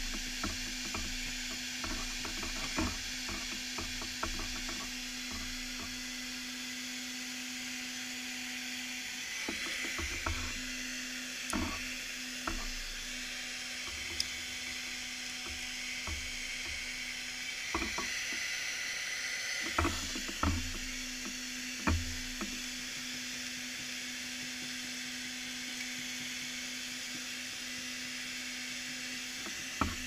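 Handheld hair dryer blowing steadily with a motor hum, warming the adhesive of vinyl lettering on a vehicle's paint, while a plastic card scrapes and clicks against the letters now and then. The hum drops out briefly twice.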